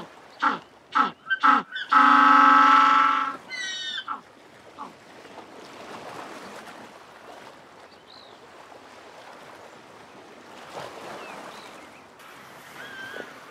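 African penguin braying: four short calls in quick succession build into one long, loud, donkey-like bray about two seconds in, which breaks off into a few stepped notes. This is the species' ecstatic display call. Faint background sound follows for the rest of the time.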